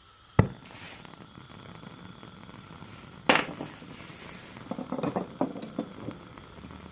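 A modified propane torch burning MG2 gas with a faint steady hiss. A sharp click comes about half a second in, a louder metallic clink about three seconds in, and a run of smaller metal clinks and knocks around five to six seconds in.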